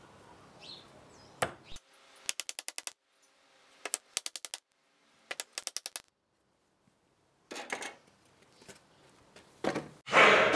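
Claw hammer driving nails into a wooden board: several quick runs of ringing taps, each run of about six or seven strokes within under a second, separated by short pauses, followed by a few softer knocks. Music comes in at the very end.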